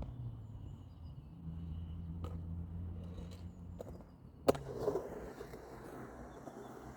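Skateboard wheels rolling with a steady low rumble, a few light clicks, then a sharp clack about halfway through, followed by a rougher scraping hiss that fades.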